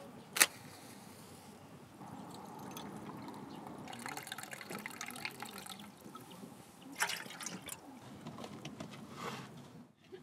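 Liquid pouring and dripping around aluminium camping pots and a camp stove, with a sharp click about half a second in and a cluster of clicks and small clatter about seven seconds in.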